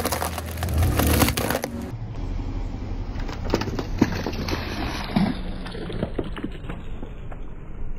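A car tyre rolling onto a bag of dry pasta, crunching and crackling densely for about two seconds. The tyre then presses on liquid-filled balloons and a plastic cola bottle, giving scattered cracks and pops, with one sharp crack about four seconds in.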